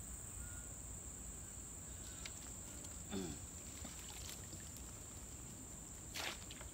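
Steady high-pitched chorus of insects at a pond's edge, with a short low sound about three seconds in and a brief splash of water near the end as a wire keepnet is lowered into the pond.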